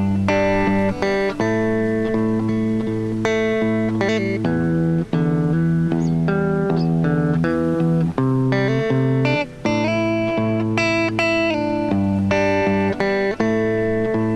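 Instrumental passage of a song with no singing, led by guitar over sustained notes, each new note changing the chord about every second or two.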